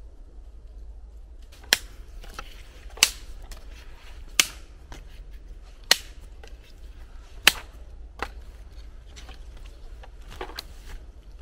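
Sharp cracks of wood being struck: five loud hits about a second and a half apart, then a lighter one.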